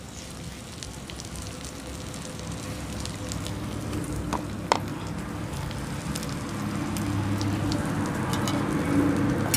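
Wood fire crackling in a clay stove under a kadai, with spices sizzling in the hot oil. The sizzle grows a little louder toward the end, and there is one sharper click about halfway through.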